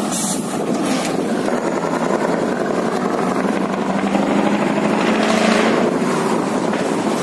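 Scania 164's V8 diesel engine running as the tanker truck pulls along the street: a steady engine note that swells a little past the middle, with some wind on the microphone.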